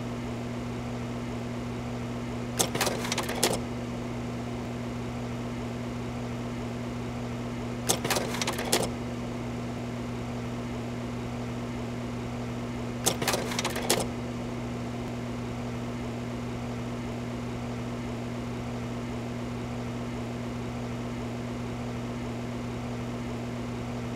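A steady low electrical-sounding hum, broken three times by a short clatter of rapid clicks lasting under a second, about five seconds apart.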